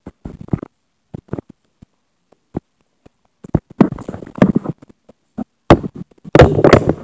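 Handling noise from the recording device being picked up and moved: irregular knocks, taps and rubbing right on the microphone, sparse at first, then denser, with sharp knocks and the loudest rubbing near the end.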